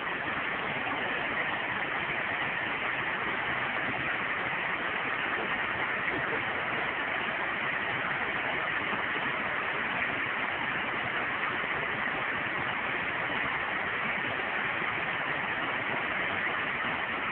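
Shallow river water rushing steadily over low rock-ledge cascades.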